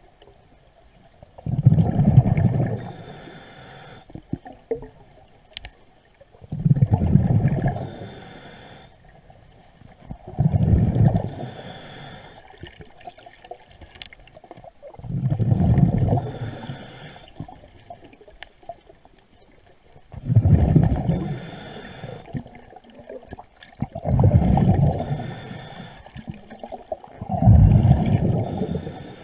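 Diver breathing through a scuba regulator underwater: seven loud, low, rumbling bubble exhalations, one about every four seconds, each followed by a fainter, higher hiss as he draws the next breath.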